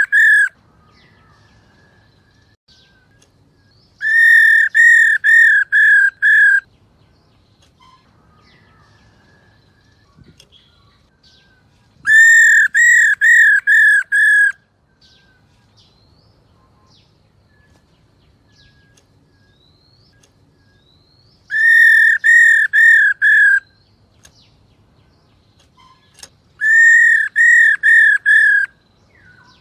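Black-throated laughingthrush calling: four bursts of five or six quick, evenly repeated clear notes, several seconds apart, with faint chirps in between.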